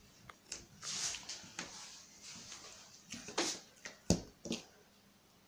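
Hands pulling apart and shaping soft dough into balls on a plastic-covered table: quiet rustling and handling noises, with a few light thumps in the second half.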